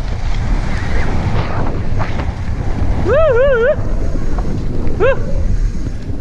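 Wind rushing over the microphone with the low rumble of a mountain bike running down a dirt trail. Two short wavering whistle-like squeals cut through, one lasting under a second about three seconds in and a brief rising one about two seconds later.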